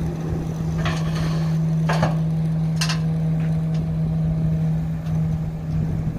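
Dump truck engine running steadily with a low, even hum as the hydraulic hoist tips the loaded body higher. A few sharp knocks come about one, two and three seconds in.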